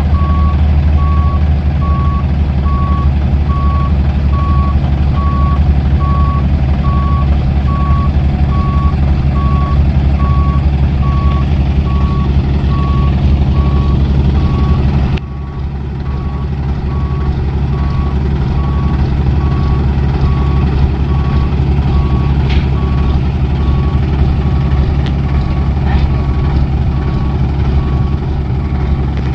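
Hino dump truck's diesel engine running while its reversing alarm beeps steadily, about one and a half beeps a second. The overall sound drops abruptly about halfway through, and the beeping carries on.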